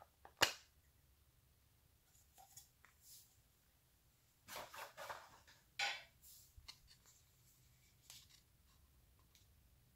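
Small plastic storage case being handled and opened: a sharp plastic click about half a second in, then faint ticks, and a cluster of plastic rustling and clicking from about four and a half to six seconds in.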